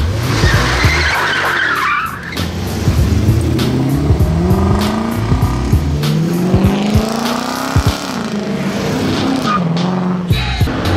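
Mercedes-Benz C126 SEC coupé's V8 accelerating hard past, its engine note rising steeply in pitch, dropping at an upshift and rising again, over background music with a steady beat. A brief harsh rushing noise, like tires squealing, comes in the first two seconds.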